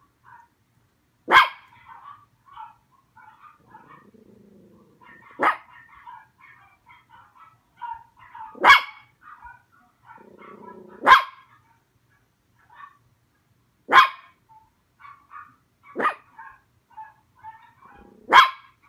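Small dog barking at dogs on a television: seven sharp, loud single barks, two to four seconds apart, with fainter sounds between them.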